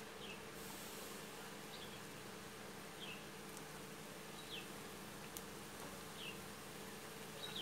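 A faint steady buzzing hum, with short high falling chirps about every second and a half.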